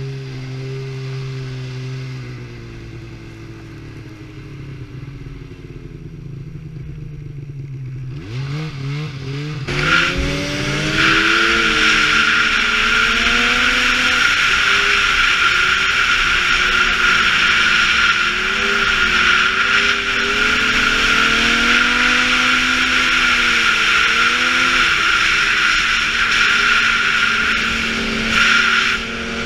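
Snowmobile engines running at low revs, revving up around eight seconds in, then a snowmobile running at speed: a loud steady rush with a high whine and a wavering engine note.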